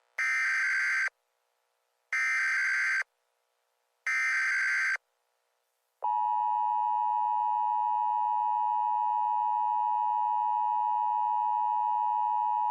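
Emergency Alert System SAME header: three short bursts of screeching digital data tones about two seconds apart, followed a second later by the long, steady EAS attention tone.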